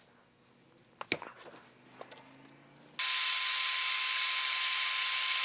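A few small clicks and taps of hand tools on a battery cable, the sharpest about a second in. About three seconds in, a small electric tool or blower starts abruptly and runs steadily with a hiss and a high whine.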